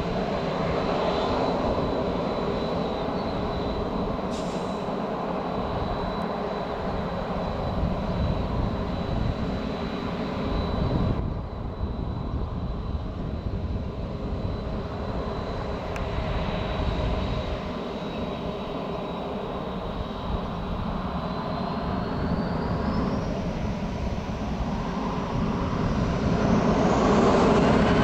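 Jet engines of a taxiing SAS Boeing 737 airliner running, a deep rumble under a thin, steady whine. Over the last several seconds the whine rises in pitch and the sound grows louder as the engines spool up for take-off.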